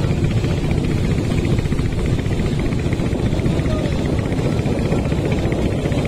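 Boat engine running steadily with a fast, even pulse.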